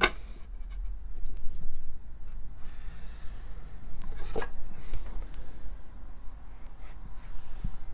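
Marker pen drawing a line on paper along a steel ruler, a soft scratching stroke, with small clicks and rubs as the ruler is set down, slid and lifted; one sharper click about four and a half seconds in.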